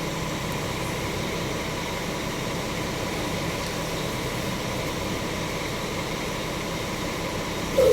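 Steady background hum of vehicle engines and traffic, even throughout with no horn or passing event.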